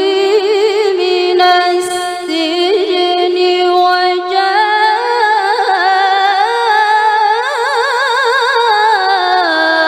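A woman's solo voice in the melodic Qur'an-recitation (tilawah) style, amplified through a microphone. It sings long held notes decorated with rapid melismatic trills, and climbs to a higher pitch after about four seconds before settling back down near the end.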